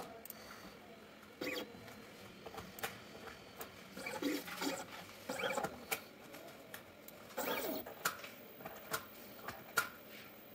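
Medit tabletop dental scanner's motorised turntable arm tilting and rotating the denture in short moves: faint scattered clicks and brief mechanical whirs, the longest about halfway through and again about three quarters of the way in.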